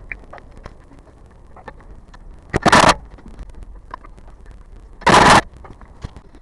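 Two loud knocks, about two and a half seconds apart, from a Hyundai Grandeur HG's body or suspension, the front or rear noise the car is being checked for, over a background of small ticks and rattles.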